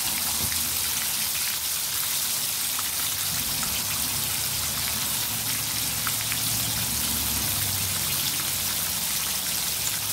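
Canola oil sizzling and crackling steadily around battered chicken wings frying in a cast iron skillet, a rain-like hiss dotted with small pops. The frying is still lively, a sign that moisture is still cooking out and the chicken is not yet done.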